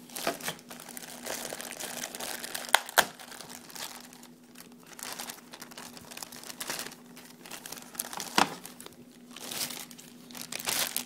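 Clear plastic bag crinkling and rustling as the wireless modem-router inside it is handled. There are a few sharp knocks: two close together about three seconds in, and one about eight seconds in.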